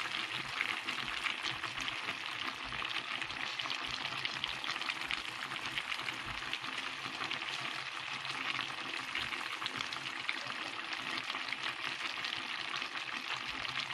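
Clams sautéing in a pan with a little broth, sizzling steadily with a fine, even crackle.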